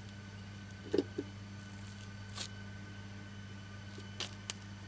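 Light knocks and clicks as a wall-mounted face-recognition access-control terminal is handled and pressed against the wall: two soft knocks about a second in, a short scrape near the middle, and two sharp clicks near the end, over a steady low hum.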